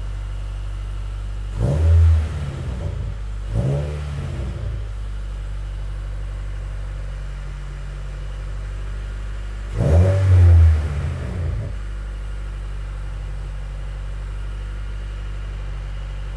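Subaru WRX's turbocharged FA20DIT flat-four idling steadily, blipped three times by the throttle: a short rev about two seconds in, another about a second later, and a longer double rev about ten seconds in, each falling back to a steady idle. It runs and idles normally on a freshly installed high-pressure fuel pump.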